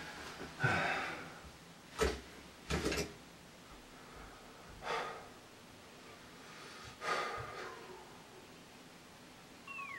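A man's breathy huffs and sighs, about five spread over several seconds, with a sharp click about two seconds in, in a small tiled room.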